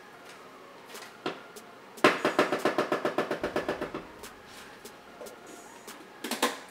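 Hand-twisted spice grinder cranked quickly, a rapid ratcheting crunch of about a dozen clicks a second that lasts about two seconds and fades; a few light clicks and knocks of kitchenware come near the end.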